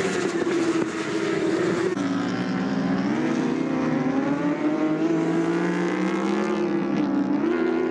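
Several 1000 cc endurance racing superbikes running hard on track, their engine notes overlapping. The pitch steps up sharply a few times as the riders change gear.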